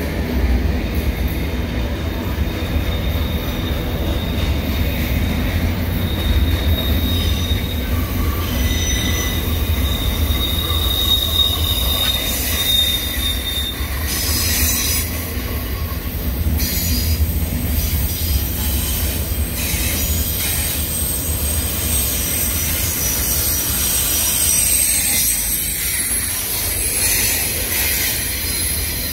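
Double-stack container well cars of a freight train rolling past on a curve: a steady low rumble from the wheels on the rails, with thin, high wheel squeal that comes and goes.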